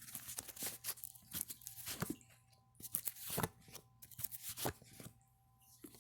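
Tarot cards being shuffled and handled: an irregular run of short card clicks and papery swishes, the loudest swishes about two and three and a half seconds in.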